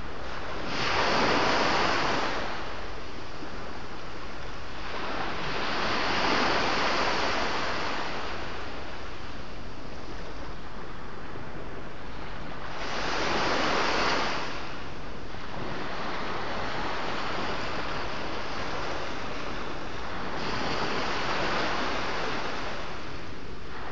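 Sea waves breaking: four separate surges of rushing surf, several seconds apart, each swelling and fading over a steady wash of sea noise.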